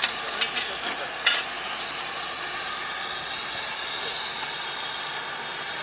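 Steady hiss of the gas preheating torch burning inside the mould of a thermite rail weld, heating the rail ends before the pour, with a few sharp clicks in the first second or so.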